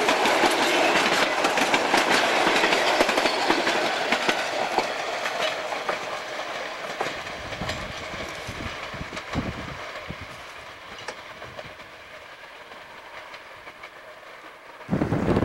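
Narrow-gauge passenger cars rolling past close by, wheels clicking over the rail joints, the sound fading steadily as the last car moves away. Just before the end, a sudden loud rush of wind noise on the microphone cuts in.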